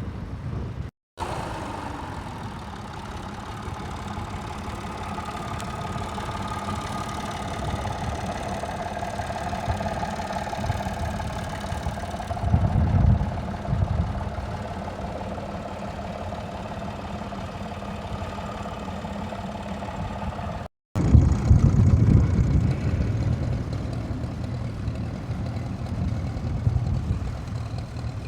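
Tractor engines running steadily across the ploughing field, with a faint wavering whine over a low rumble. Twice the rumble swells louder for a second or two, and the sound cuts out completely twice for a moment.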